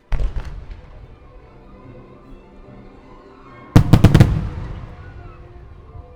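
Aerial fireworks shells bursting: a few sharp bangs just after the start trailing off in a rumble, then a louder rapid run of about five reports about four seconds in, over background music.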